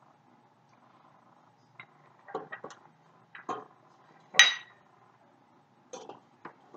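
A metal spoon clinking and scraping against a small ceramic bowl while mixing food: a string of short clinks, the loudest a bit past the middle with a brief ring.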